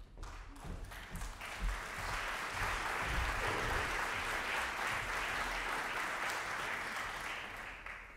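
Audience applauding: a few scattered claps that swell into full, steady applause about a second and a half in, then die away near the end.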